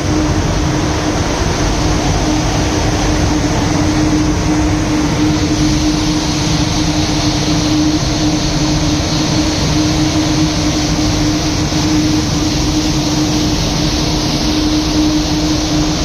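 Steady running noise of a rail vehicle's equipment: an even rumble and hiss with a constant droning hum throughout.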